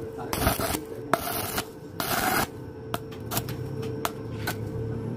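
Stick-welding arc crackling on thin 0.7 mm square steel tube, struck in several short bursts with gaps between, then scattered sharp clicks. A steady hum runs underneath.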